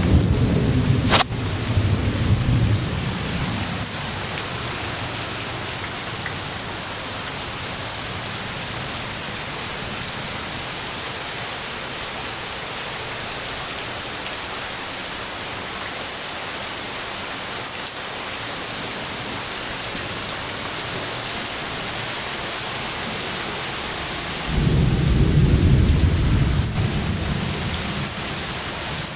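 Steady rain falling with thunder: a sharp crack about a second in, inside a low rumble that dies away over the first few seconds, and a second roll of thunder rumbling for about three seconds near the end.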